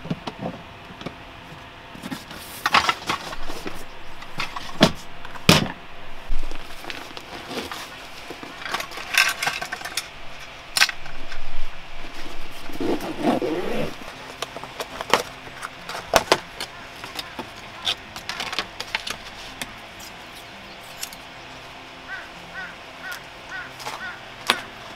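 Close handling of camping gear: scattered clicks, knocks and rustles as a plastic storage crate is opened and a fabric cutlery pouch is unfastened, with light metallic jingles of cutlery being taken out.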